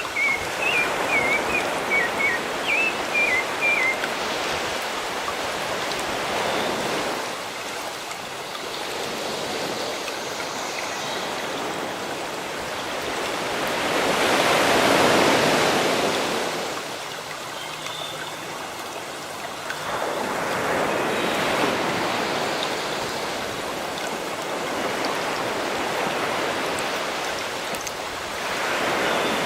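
Sea waves washing in and drawing back in slow surges, the biggest swell about halfway through. A bird chirps in quick short notes during the first few seconds.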